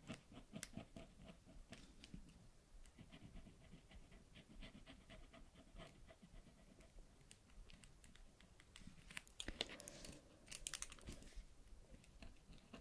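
Faint scratchy strokes of colouring in a colouring book, pen or pencil rubbing on paper in short repeated strokes, growing louder about nine to eleven seconds in.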